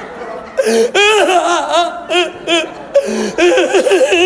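A man acting out loud, exaggerated crying: a string of short, high-pitched, wavering wails and sobs with brief gaps between them.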